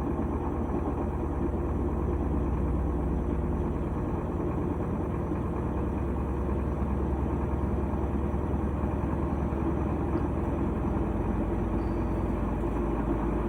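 GE top-load washing machine in its high-speed spin: a steady, even low rumble from the motor and spinning drum, with the lid lock now holding after a new lid switch was fitted.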